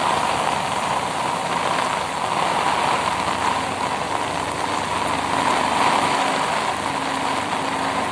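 Heavy rain on a waterlogged road with vehicle engine noise: a steady wash of noise, with a low engine hum joining about halfway through.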